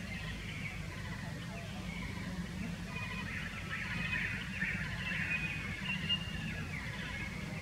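Outdoor ambience: many short, high chirps from small birds, loudest around the middle, over a steady low hum of distant traffic.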